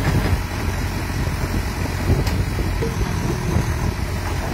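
Caterpillar backhoe loader's diesel engine running steadily, with one brief click about two seconds in.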